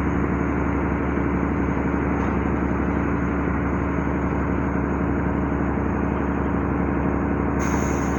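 Generator engine running steadily, a constant drone with a steady hum, and a hiss joining near the end.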